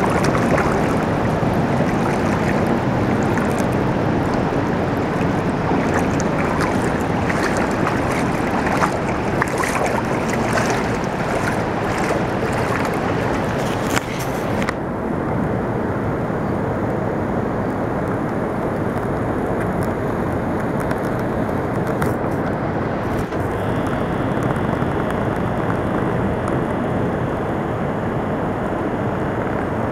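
Steady, loud rushing noise with no voices; its high hiss drops away suddenly about halfway through, leaving a duller rush.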